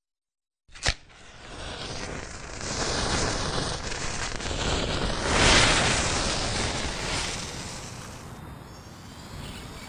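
A sharp click about a second in, then a noisy rushing sound effect that swells to its loudest about five and a half seconds in and slowly fades.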